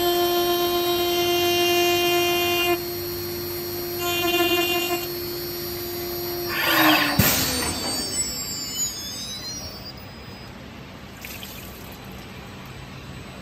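High-pitched steady whine of a CNC glass machining centre's spindle cutting a glass sheet under a water coolant spray. About seven seconds in there is a burst of hiss and crackle, and the whine drops in pitch and stops, leaving a quieter hiss.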